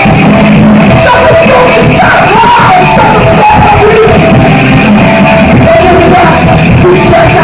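Hardcore punk band playing live at full volume, with yelled vocals over the music, loud and unbroken.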